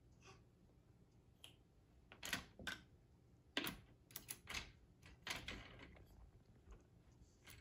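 Faint, irregular clicks and knocks of wooden toy pieces as a baby handles the side panels of a wooden activity cube: about a dozen light taps spread over several seconds, a few louder ones in the middle.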